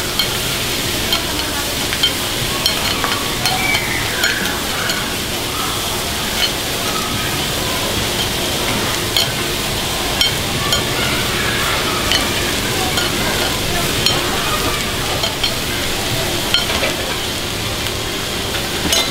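Food sizzling on a hot iron serving plate: a steady hiss with scattered small pops and crackles.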